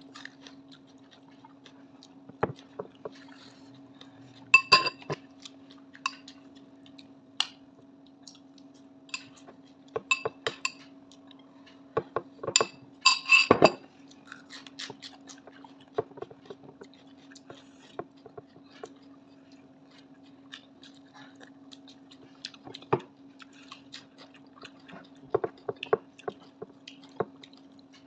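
A person eating by hand from a plate: chewing and scattered small clicks, with a few ringing clinks of the plate, loudest about five seconds in and again around thirteen seconds in. A steady low hum runs underneath.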